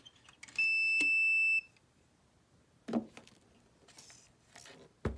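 A single high-pitched electronic beep, one steady tone lasting about a second, with a click partway through it. A couple of light clicks or knocks follow later on.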